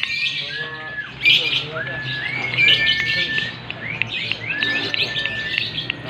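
Lovebirds chattering and chirping in their cages, several at once, with held whistle-like notes that step up in pitch a few times.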